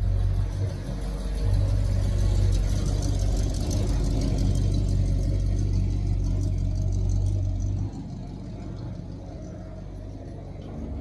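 A car engine running at idle: a steady low rumble that drops off sharply about eight seconds in.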